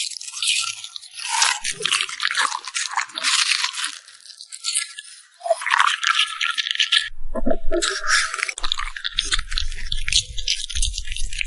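French bulldog chewing crunchy food close to the microphone: rapid crackling crunches that pause briefly about seven seconds in, with a low rumble near the end.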